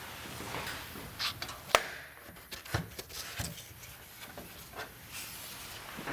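Computer parts being handled during a PC assembly: a run of small clicks and light knocks, the sharpest a single click about two seconds in, with a couple of duller knocks after it.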